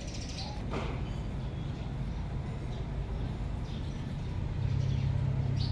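A steady low motor hum that gets louder about two-thirds of the way in, with faint short bird chirps above it.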